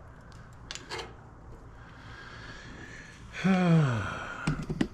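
A few light clicks of tools or parts being handled, then a man's wordless vocal sound, like a groan, that falls in pitch for about two thirds of a second, followed by more quick clicks near the end.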